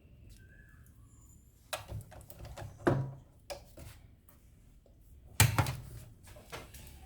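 Handling noise from items being moved and set down: a series of knocks and clatter, with the two loudest thumps about three seconds and five and a half seconds in.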